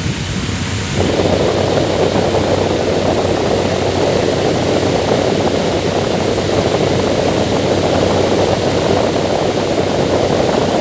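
Loud electric fan running steadily, an even rushing noise. About a second in it turns slightly fuller and louder, then holds steady.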